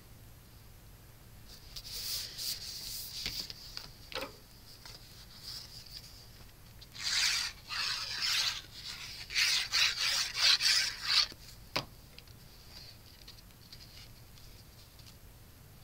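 Cardstock being handled and rubbed by hand: paper sliding and being smoothed down in scattered rustling bursts, loudest in the middle, with two brief sharp taps.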